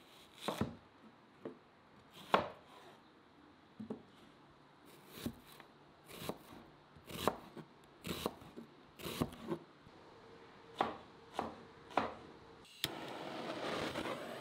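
Chef's knife slicing a whole onion on a plastic cutting board: about a dozen separate cuts, roughly one a second, each stroke ending on the board. Near the end a sharp click is followed by a steady noise that starts abruptly.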